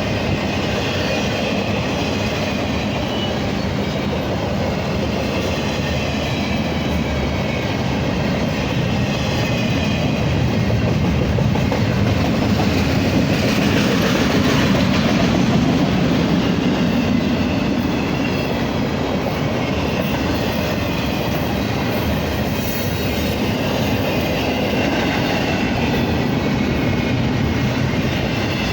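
Cars of a BNSF intermodal double-stack freight train rolling past, steel wheels clattering steadily on the rails with a faint wavering wheel squeal. It grows somewhat louder around the middle and then eases back.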